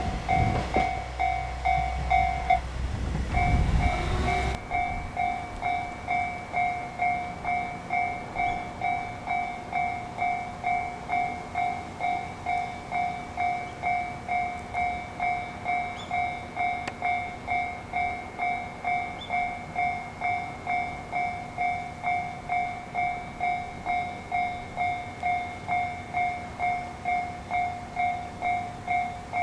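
Japanese level-crossing warning bell ringing in a steady rhythm of about two strikes a second. A passing train's low rumble sounds over it for the first four seconds or so, then stops.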